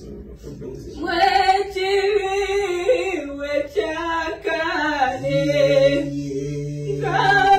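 A woman singing a slow worship song unaccompanied, starting about a second in, with long held notes. A low steady hum comes in beneath her for the last couple of seconds.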